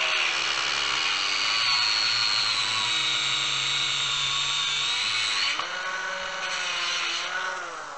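Angle grinder with a cut-off disc cutting through a steel bar clamped in a vise, a steady high whine under load. About five and a half seconds in the disc breaks free of the cut and the motor speeds up, then near the end the pitch falls and the sound fades as the grinder winds down.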